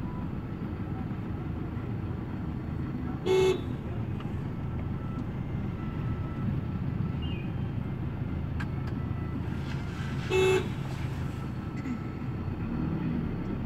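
Two short beeps of a vehicle horn, about seven seconds apart, over the steady low rumble of a moving vehicle and road traffic.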